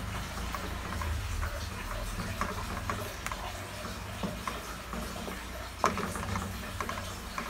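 Wooden spoon stirring a simmering pineapple basting sauce in a pan: soft scraping and small light knocks against the pan, with one sharper knock about six seconds in, over a low steady hum.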